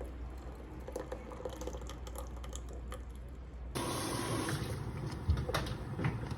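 Liquid sounds: a soft trickle with a few light clicks, then about four seconds in a louder, fuller rush of liquid starts abruptly, with a sharp click a little later.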